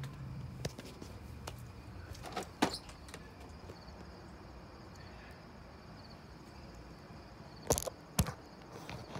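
Faint chirping of night insects, likely crickets, with a few sharp clicks or knocks; the two loudest come close together near the end.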